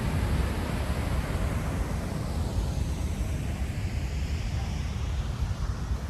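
Steady rushing of a river in flood, with wind buffeting the microphone in a rumbling low gusting noise.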